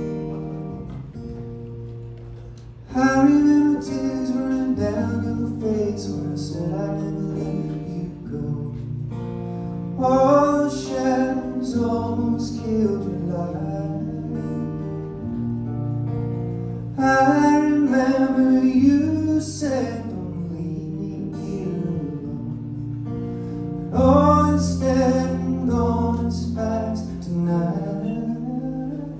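A man singing with his own acoustic guitar accompaniment. Sung lines come in about every seven seconds, starting about three seconds in, with the guitar ringing on between them.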